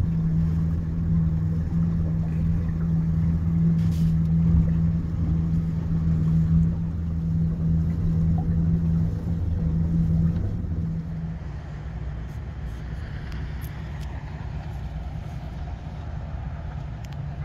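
Shanty boat's outboard motor running steadily under way: a constant low drone. About two-thirds of the way through it gives way to a quieter, lower steady rumble.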